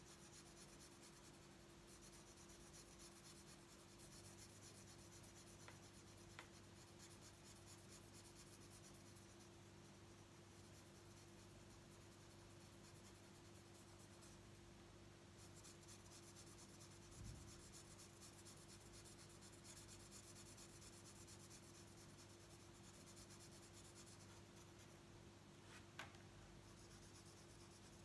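Faint scratching of a felt-tip marker colouring in on paper, in stretches of quick back-and-forth strokes, with a few light taps.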